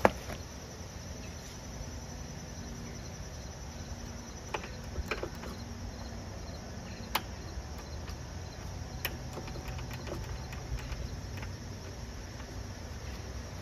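A few sharp light clicks, scattered a second or two apart, as the rear-wheel drive parts on the axle of a Honda self-propelled mower are turned by hand. Behind them is a steady high insect chirring that fades out about halfway through.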